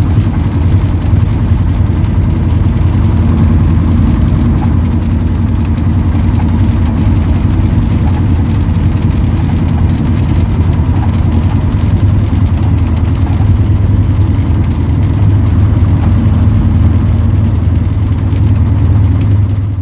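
Bristol K5G double-decker bus's Gardner five-cylinder diesel engine running steadily as the bus drives along, heard from inside the bus as a loud, deep engine note with road and body noise.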